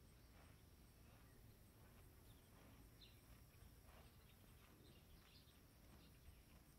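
Near silence: faint rural outdoor ambience with a low rumble and a few faint, short, high chirps scattered through it.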